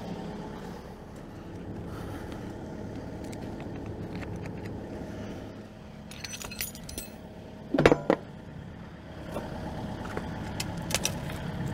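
John Deere 135G excavator's diesel engine idling steadily while steel chain links clink against each other and the track, about six seconds in and again near the end. A heavy thud about eight seconds in is the loudest sound.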